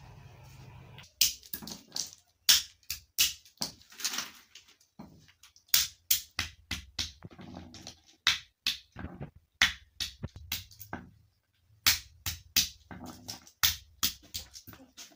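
Steel hammer cracking walnuts in the shell on a wooden log block: a run of sharp knocks and shell cracks, two or three a second, with a short pause about eleven seconds in.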